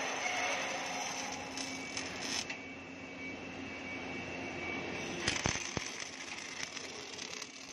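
MAG welding arc crackling and hissing as an automatic spiral-fin welding machine lays a weld along a steel spiral flight on its shaft, over a steady machine hum. About 2.5 s in the arc noise drops to a quieter hum, a few sharp clicks come a little after 5 s, and the crackling hiss returns.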